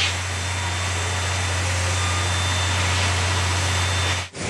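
C57 steam locomotive standing at the platform: a steady hiss over a strong low hum, breaking off briefly near the end.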